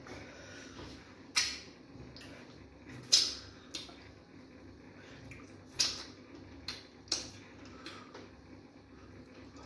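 Close-up wet eating sounds of fufu and banga soup eaten by hand: about six short, sharp smacks and slurps, the loudest about three seconds in.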